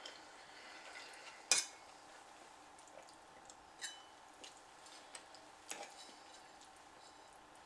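Fork clinking and scraping against a plate while picking up noodles: a handful of light, scattered clicks, the loudest about one and a half seconds in.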